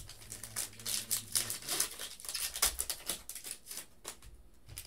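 Football trading cards being flipped through and handled on a table: a quick run of papery clicks, slaps and rustles of card stock, over a faint low hum for the first second or so.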